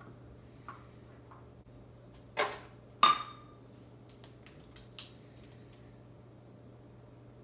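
Ice cream being scooped and dropped into a blender jar: light clicks, then two sharp knocks of the scoop against the containers less than a second apart, the second ringing briefly, and a smaller tap a couple of seconds later.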